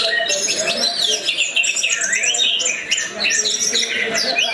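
Orange-headed thrush (anis merah) singing a continuous, rapid song of varied whistles and chirps, the notes sliding quickly up and down, with no pauses.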